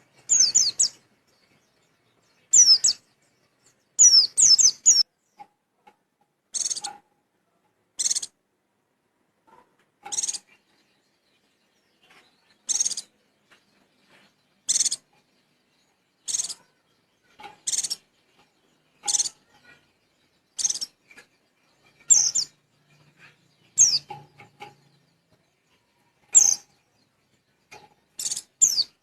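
White-eye (pleci) giving the wild-type 'witwit' call: short, high chirps with quick downward sweeps. It gives quick runs of several notes in the first five seconds, then single calls every one to two seconds.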